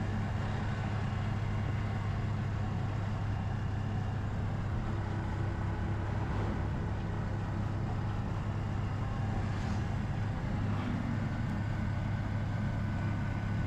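Motor vehicle engine running steadily, a low, even hum with no change in speed.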